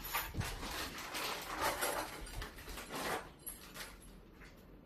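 Parts being handled during assembly: irregular rustling and scraping with a few light clicks, busiest in the first three seconds and thinning out after.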